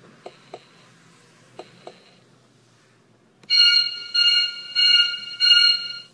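Electronic sound-effect box playing canned sounds through its small speaker. First come faint ticks in pairs, twice. Then, about three and a half seconds in, four loud short bursts of a steady, ringing electronic tone.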